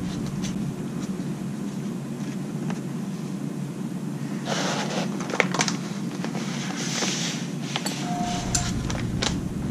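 Steady hum of a fume-extraction fan, with brief rustles and light clicks of the plastic chassis part and masking tape being handled, most of them around the middle.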